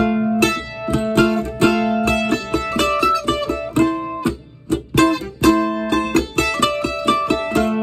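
Mandolin picked through a Mooer Black Truck multi-effects pedal: a quick run of single notes that ring on, over one high note held under most of it, with a short dip a little past halfway.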